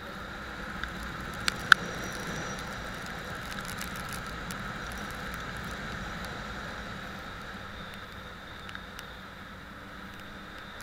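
Steady vehicle running noise with two sharp clicks about a second and a half in.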